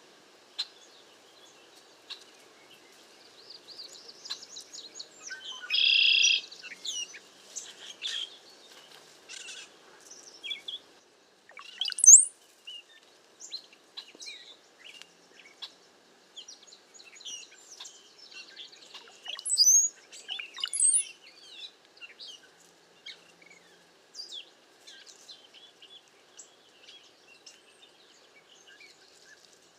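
A flock of cowbirds calling: many short chirps and thin high whistles, with a louder buzzy call about six seconds in and sharp rising whistles around twelve and twenty seconds in.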